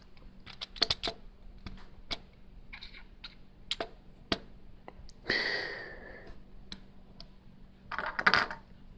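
Small plastic clicks and taps at irregular intervals: Lego pieces being handled and knocked together, with a brief rustle about five seconds in.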